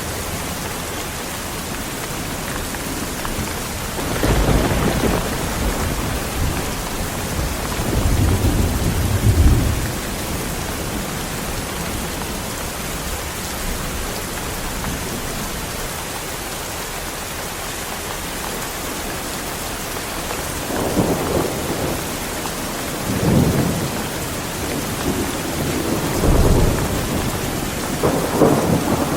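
Strong rain falling steadily, with thunder rumbling in several times: a long roll from about four seconds in to about ten seconds, and a run of shorter rumbles in the last third.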